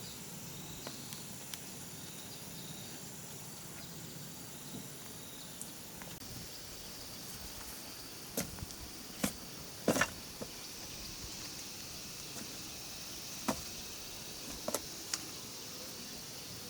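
A few sharp knocks and taps, several seconds apart with a quick cluster about ten seconds in, over a steady high-pitched insect drone.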